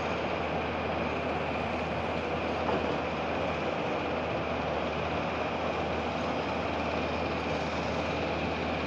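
Steady drone of heavy industrial machinery, a low hum with a faint high whine over an even rushing noise.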